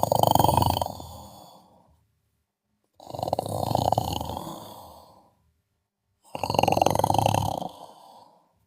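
Snoring: three buzzing snores about three seconds apart. Each starts sharply and fades away over about two seconds, with silence between.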